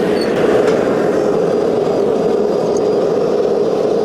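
Steady, even roar of a forge running, with no hammer blows.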